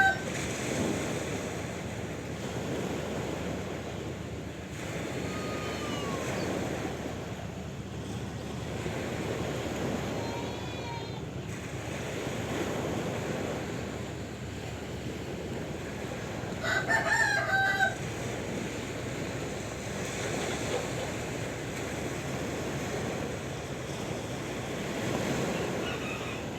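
Sea waves washing steadily against the shore. A single animal call of about a second rises over the waves about two-thirds of the way through.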